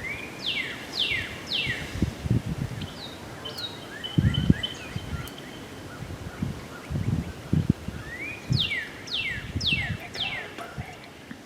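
A songbird singing: a series of clear whistled notes, each falling in pitch, three near the start and four or five more near the end, with a long steady whistle between them. Low thumps come and go underneath.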